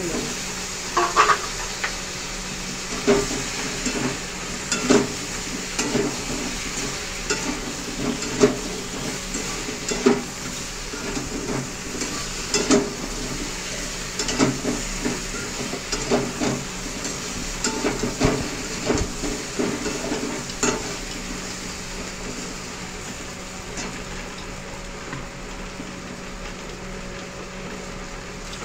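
Boiled potato chunks frying in oil in a metal kadai, sizzling steadily. A metal spatula scrapes and knocks against the pan about once a second while stirring, and near the end only the sizzle is left.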